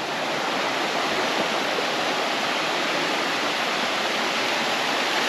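Rushing water of a mountain stream or small cascade: a steady, even rush.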